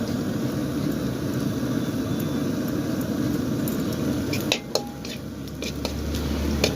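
Metal cooking utensils clinking a few times against pots in the second half, over a steady low rumbling noise.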